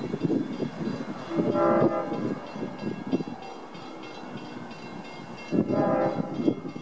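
Train horn sounding two short blasts, one about a second and a half in and another near the end, each under a second long, over a low rumble.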